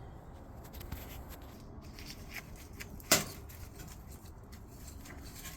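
Small clicks and taps of metal handling on a rusty wrench as its adjusting wheel is worked, with one sharp knock about three seconds in.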